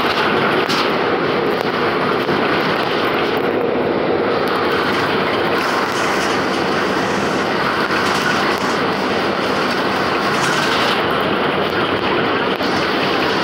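Cabin noise inside a Mascarello Gran Via-bodied Volksbus 17-230 OD city bus at road speed on a wet highway: the engine and tyres make a steady noise, with frequent sharp rattles and knocks from the body and fittings.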